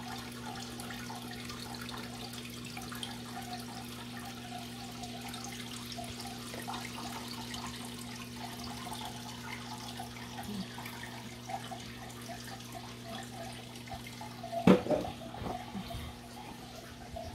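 Aquarium water circulating and gurgling, with a steady low hum underneath, typical of a running tank filter or pump. A sharp knock about fifteen seconds in, followed by a few smaller ones.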